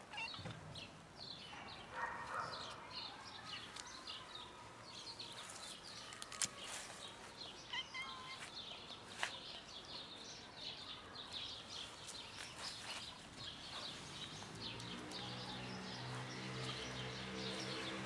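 Small birds chirping steadily in the background, many short high calls. Background music fades in near the end.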